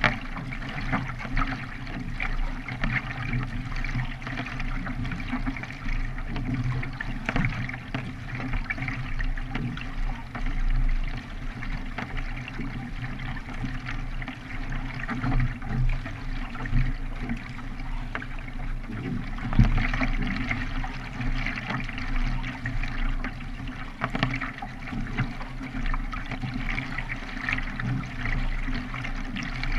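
A K1 racing kayak being paddled: paddle blades splashing into the water and water trickling off them at irregular moments, over a steady low rumble.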